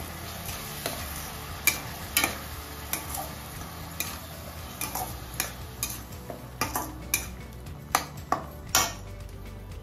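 Steel spatula stirring a thick onion-tomato paste in a stainless steel kadai, scraping and clinking against the pan at irregular moments.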